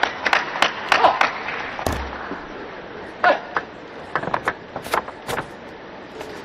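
Indoor arena crowd at a table tennis match calling out and clapping, dying down after a second or so into a quieter hum with scattered sharp clicks and a low thud about two seconds in.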